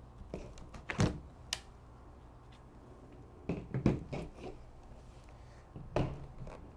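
A laptop battery being unlatched and slid out: sharp plastic clicks and scrapes, one about a second in, a cluster near the middle, and another near the end.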